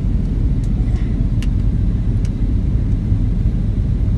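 Steady low rumble of an airliner's passenger cabin, with three faint light clicks.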